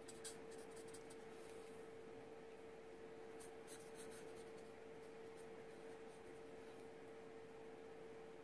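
Faint soft scratching of a Copic marker tip stroking across card stock as colour is laid down, over a steady faint hum.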